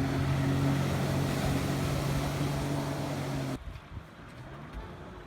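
A motor engine running at a steady pitch. It cuts off sharply about three and a half seconds in, leaving a quieter hiss.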